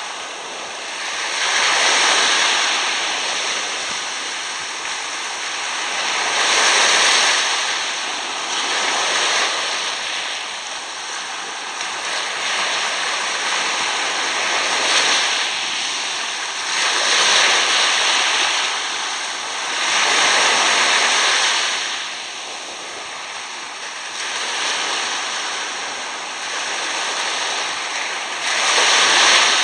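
Small waves washing up and draining back over coarse sand, a hissing wash that swells and fades every few seconds.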